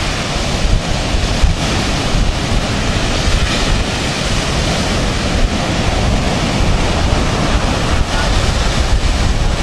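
Ocean surf breaking and washing up the sand in a steady, continuous rush, with wind buffeting the microphone and adding a low, fluttering rumble.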